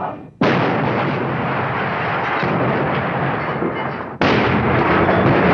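Heavy, sustained gunfire: a dense, continuous crackle of many shots that starts sharply about half a second in, breaks off abruptly about four seconds in and at once starts again.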